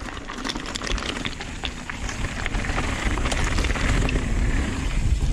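Nukeproof Dissent downhill mountain bike rolling over a rocky dirt trail: tyre noise and rapid rattling clicks from the bike, with a low wind rumble on the microphone, getting steadily louder as it picks up speed.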